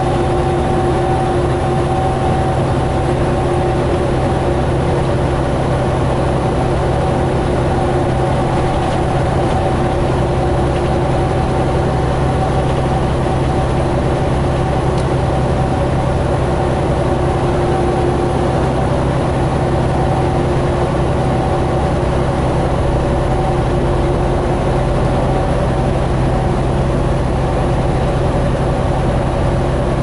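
Steady cab-interior noise of a semi-truck cruising at highway speed: a continuous low engine drone with a few steady held tones over road and tyre noise.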